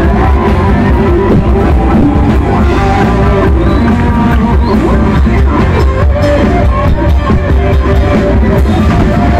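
Live band playing loud dance music: drums, electric guitar and a horn section with saxophones and trombone, over a heavy steady beat.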